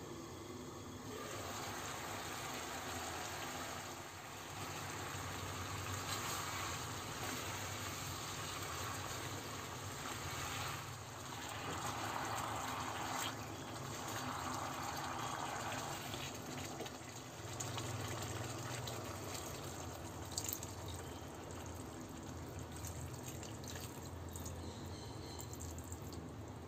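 Thick chicken curry gravy bubbling and sizzling in a nonstick wok as it reduces, stirred with a spatula. A brief sharp click about twenty seconds in.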